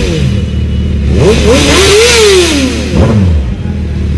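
Sport motorcycle engine idling, revved once about a second in with a rise and fall in pitch, then given a short sharp blip near the end.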